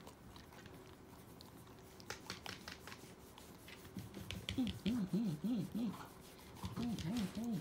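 Fingers scratching a long-haired dachshund's neck fur: a quiet rustle with faint scratchy clicks. From about the middle, a voice makes quick runs of short rising-and-falling hums, about four a second, twice.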